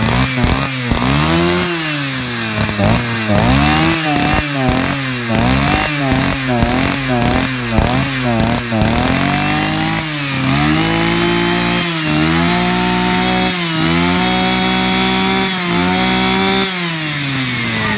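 Husqvarna 236R brushcutter's two-stroke engine on a test run, revved in quick throttle blips, about one and a half a second, for the first half. It is then held at high revs in longer pulls of a second or two, dropping back briefly between them.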